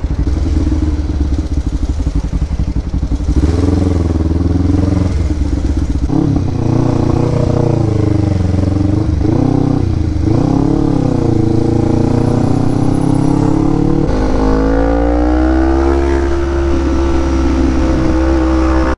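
Sport motorcycle's engine heard from the rider's seat, rising and falling in pitch through several revs and gear changes while riding in town traffic, then climbing slowly and steadily as it accelerates onto the highway.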